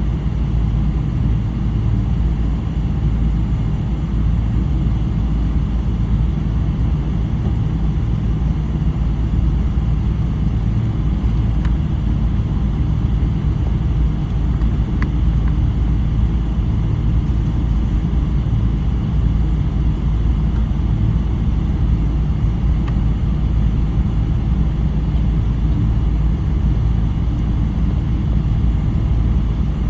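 Steady low rumble of a Boeing 777-300's Rolls-Royce Trent 800 engines and airflow heard inside the passenger cabin, holding an even level throughout.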